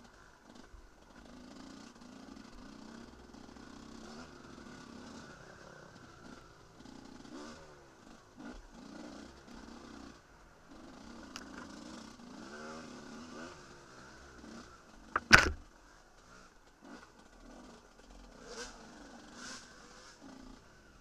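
Enduro motorcycle engine revving up and down as it is ridden over a dirt trail, heard from a camera mounted on the bike. A single loud, sharp knock comes about two-thirds of the way through.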